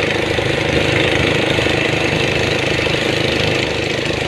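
A boat's engine running steadily at close range, with a rapid, even knocking.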